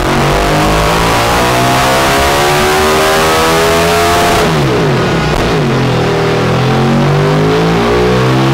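KTM 1290 Super Duke R's V-twin, with an Akrapovic full exhaust, revving under full throttle on a dyno as the revs climb steadily to about 10,000 rpm. About four and a half seconds in, the throttle is shut and the revs drop quickly, then it runs steadily at a lower speed. This is the final power run after the ECU remap.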